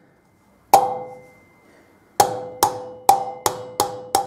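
Ball-pein hammer tapping a new wheel bearing down into a motorcycle wheel hub, metal on metal, each tap ringing briefly. One tap, a pause, then a run of six quick taps about two or three a second, driving the bearing in until it stops against the spacer tube.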